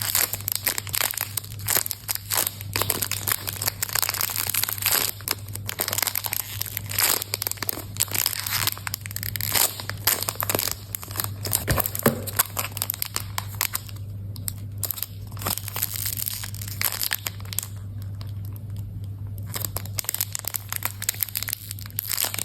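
Plastic packaging crinkling and crackling in dense, irregular bursts as it is handled and pulled open, thinning out after about fourteen seconds. A steady low hum runs underneath.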